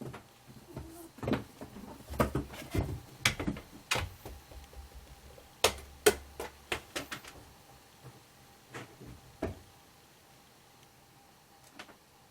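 Irregular knocks, clicks and thumps in a small room, thickest in the first seven seconds and then thinning to a few, over a faint steady hum.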